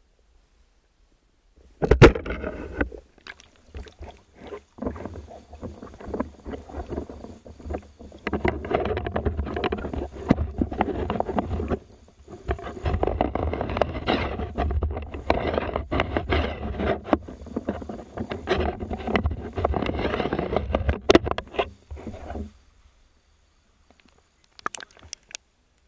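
Water splashing and churning around a camera at the river surface as a spearfisher swims, starting with a sharp knock about two seconds in and stopping abruptly about three seconds before the end.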